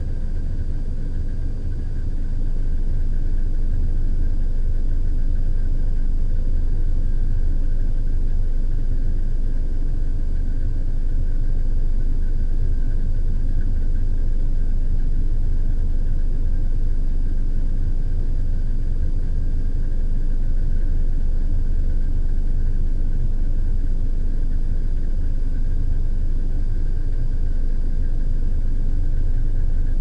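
Nuclear reactor ambience: a steady, deep machinery rumble with a faint, thin, steady whine above it, swelling slightly over the first couple of seconds and then holding even.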